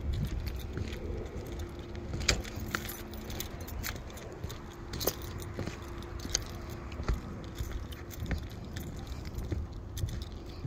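Footsteps on an asphalt-shingle roof with light metallic jangling and scattered sharp clicks, over a low rumble.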